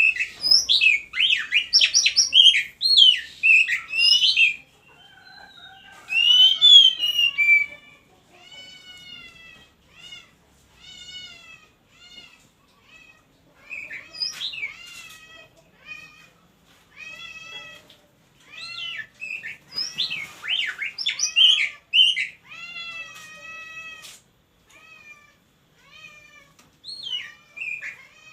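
Oriental magpie-robin (kacer) calling in breeding condition: loud bursts of quick, varied whistled phrases, broken by long runs of short, arched, mewing notes repeated about once a second.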